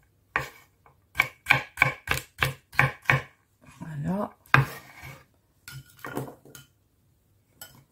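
Chef's knife chopping carrot sticks into small dice on a wooden cutting board: a quick run of sharp knocks, about three or four a second, for the first three seconds. Then a few scattered lighter knocks and clicks as the diced carrot is cleared off the board toward a glass bowl.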